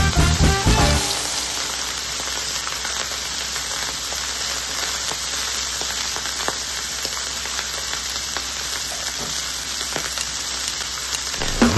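Background music stops about a second in, leaving a steady sizzle with light crackles: salmon, rice and broccoli frying on a hot flat-top griddle.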